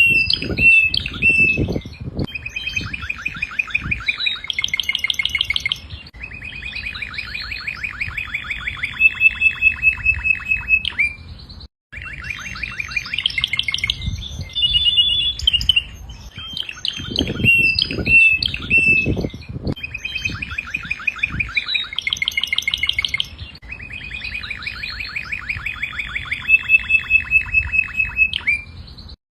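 Domestic canary singing: long phrases of rapid, evenly pulsed trills and rolls with some high chirps, repeated with brief pauses. A few low thuds sound under the song near the start and again around the middle.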